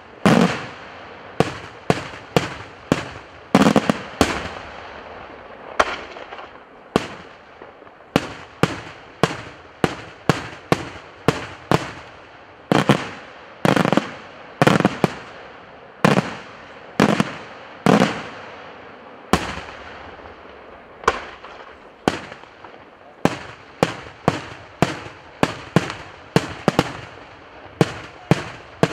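Daytime aerial fireworks: a steady, uneven string of loud shell bursts, about one to two a second, each trailing off in an echo, with a few heavier bangs among them.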